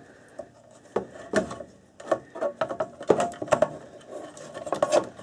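Irregular clicks, knocks and scrapes as a lab power supply's front panel assembly is worked by hand into its metal housing, starting about a second in.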